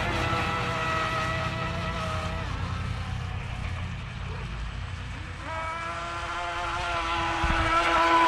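Electric RC tunnel-hull boat running fast across the water with a steady, high motor whine. The whine fades about two and a half seconds in, comes back from about five and a half seconds, and is loudest near the end as the boat passes close.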